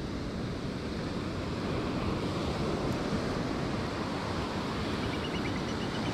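Ocean surf breaking and washing up the sand, a steady rushing sound, with wind buffeting the microphone.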